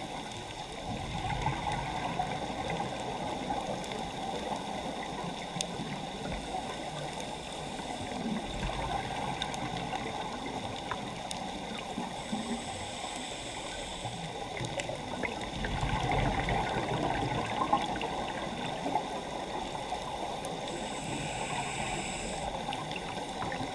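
Underwater ambience: a steady, muffled rush of water noise with a few faint clicks, swelling louder in low rumbles twice, about a third and two thirds of the way through.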